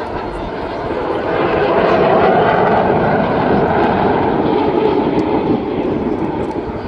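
Display aircraft flying past, its engine noise swelling to a peak about two seconds in and then slowly fading.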